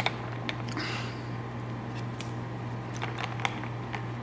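A metal straw stirring iced coffee in a glass mason jar: scattered light clinks of the straw and ice cubes against the glass, over a steady low hum.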